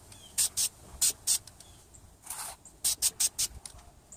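Aerosol can of silver caliper paint spraying in a quick series of short hissing bursts, about eight of them.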